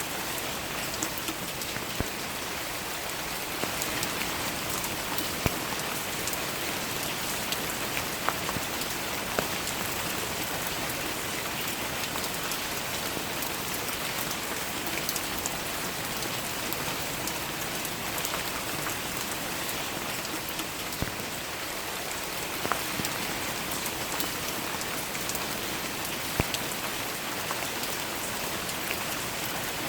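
Steady rain falling on surfaces, an even hiss with many single drops ticking close by, a few of them louder than the rest.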